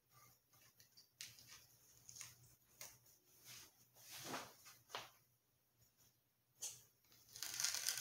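Masking tape being peeled off a rocket body tube and fin along a fresh epoxy fillet, heard as faint, scattered short peeling and rustling noises, getting louder near the end.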